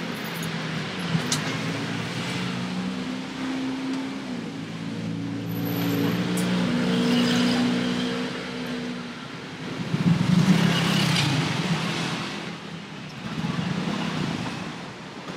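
Road traffic: motor vehicle engines running and passing, one engine's hum stepping up and down in pitch during the first half, with a louder surge of traffic noise about ten seconds in.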